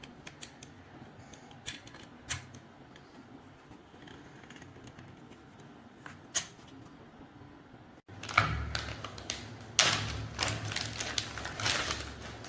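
Handling of rusty metal gun parts: scattered sharp clicks and light knocks, then denser clatter and scraping from about eight seconds in.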